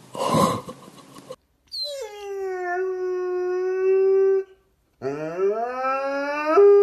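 Bernese mountain dog howling with its head raised: one long howl that drops in pitch and then holds a steady note. After a short break comes a second howl that rises from low up to the same held note. A short burst of noise comes before the first howl.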